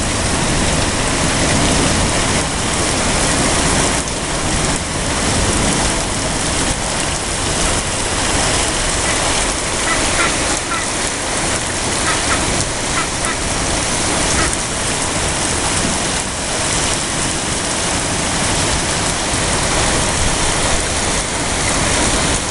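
Heavy rain pouring down in a steady hiss. A few faint duck calls come through about halfway through.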